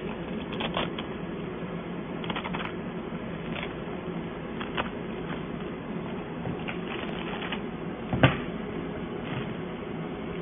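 Handling noises as a cordless drill, its charger and a bagged bit set are moved in and out of a soft carrying case: scattered rustles and light clicks, with one sharp knock a little after eight seconds in, over a steady background hum.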